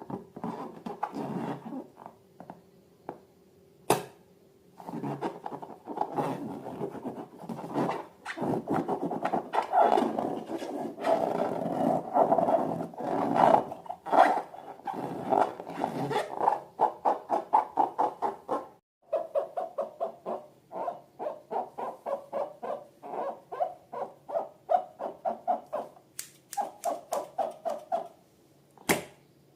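Slime being squeezed and kneaded by hand, wet squishing and squelching that settles into a quick rhythm of about three to four presses a second in the second half. There is a sharp snap about four seconds in and another near the end.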